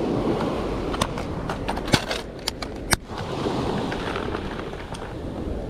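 Sea waves washing along a rocky shore with wind on the microphone, broken by a handful of sharp clicks between about one and three seconds in.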